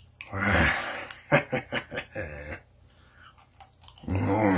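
A man burping loudly twice: a long belch just after the start and another near the end. Between them comes a quick run of short clicking, crunching sounds.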